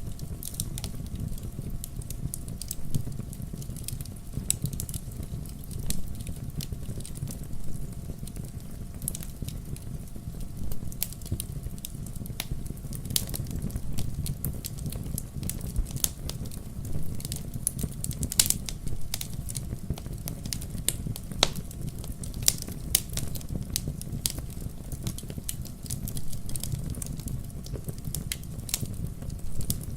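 Wood logs burning in a fireplace: irregular crackles and pops over a steady low rumble of the flames.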